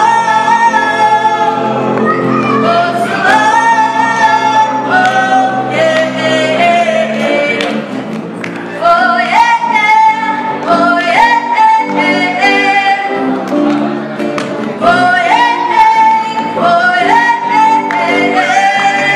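A live band playing a song: several voices, male and female, singing a melody together over acoustic guitar, electric guitar and bass guitar.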